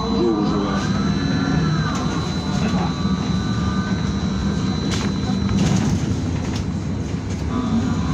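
Ride inside a BKM-32100D trolleybus: the electric traction drive whines, its pitch rising and then falling in the first few seconds as the trolleybus speeds up and eases off, over a steady rumble and a constant high whine. A couple of short knocks about five seconds in.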